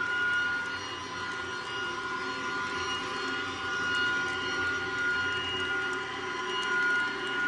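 LGB G-scale model train's coaches rolling along the track: a steady rumble of wheels on rails with a steady high whine over it.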